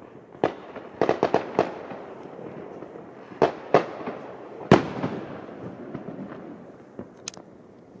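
Fireworks going off around town: about a dozen sharp bangs, with a quick run of several about a second in and the loudest near the middle. Rumbling echoes fill the gaps between them.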